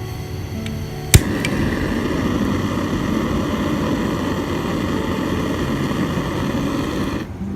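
A sharp ignition click about a second in, then a butane gas torch burning with a steady hiss for about six seconds before it cuts off suddenly.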